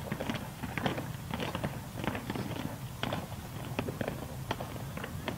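Boot steps of a uniformed troop marching on pavement: many sharp, uneven footfalls, several a second, over a low steady hum.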